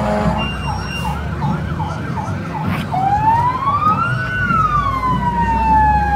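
Electronic emergency-vehicle siren. A steady horn tone stops just after the start, then the siren runs a fast yelp warble of about four cycles a second. About three seconds in it switches to a wail that rises and then falls slowly.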